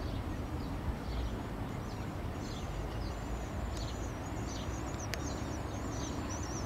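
Small songbirds chirping and twittering, short falling chirps joined from a few seconds in by a busy high warble, over a steady low outdoor rumble. A single click about five seconds in.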